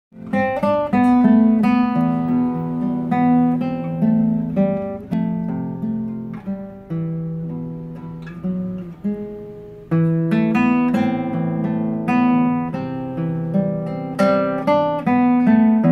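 A violin melody played with the bow over a plucked guitar accompaniment, whose low notes sit below the violin's range.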